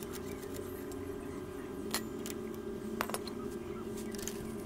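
A few sharp metal clinks of hand tools on a motorcycle's gear lever and its bolt as the lever is unbolted with a spanner and taken off, over a steady low hum.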